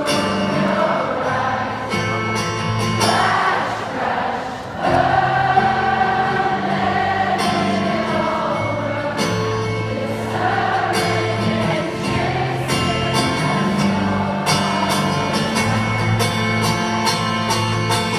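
Acoustic guitar strumming chords while a large arena crowd sings along, many voices together in a wavering, choir-like mass.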